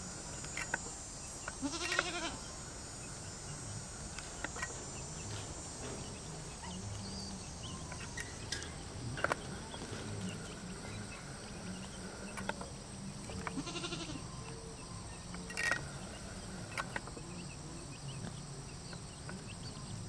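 Farmyard animal calls: two drawn-out calls that rise and fall in pitch, about two seconds in and again around fourteen seconds, with a few short high chirps scattered between them, over a low steady rumble.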